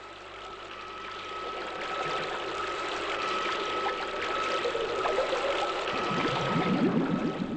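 Rushing, bubbling water that grows louder, with a steady high whine throughout; in the last second or two, wavering gurgles of bubbles.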